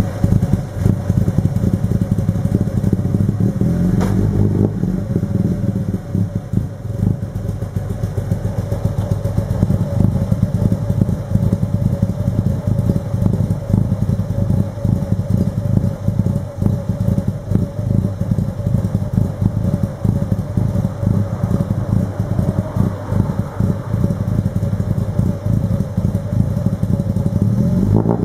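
Exhaust of an old car's engine idling at the tailpipe: a steady, rapid pulsing that starts to climb in pitch as the engine is revved right at the end.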